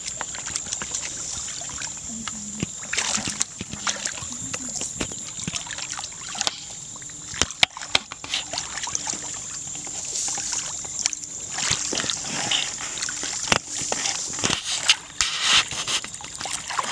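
Shallow muddy paddy water splashing and sloshing in irregular bursts as people wade through it and grope in the mud with their hands.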